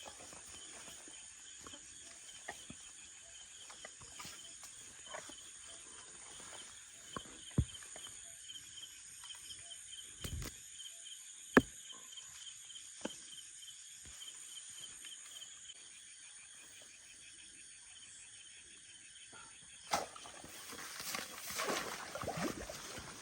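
Night insects chirping steadily, a high continuous buzz with a pulsing trill under it, with scattered short clicks and knocks. Near the end a louder rustling noise.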